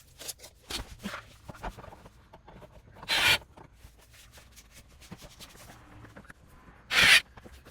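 Impact drill driving self-drilling screws into a plastic bumper lip in two short trigger bursts, about four seconds apart, the first with a high motor whine. Light clicks and handling noise come before them.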